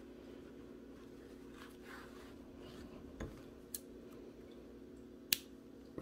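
Quiet handling of a crocheted toy as a metal yarn needle draws the yarn tail through it, with a few sharp clicks, the loudest near the end, over a steady low hum.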